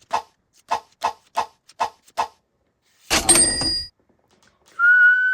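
Pokémon trading cards snapped one after another as they are flicked through, giving about six short sharp clicks. About three seconds in there is a brief burst of rustling noise. Near the end a person starts whistling a steady note.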